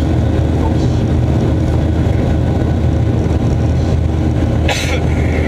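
Boeing 737-800's CFM56 jet engines heard from inside the cabin in the climb after takeoff: a loud, steady drone with a low hum. A brief hiss comes near the end.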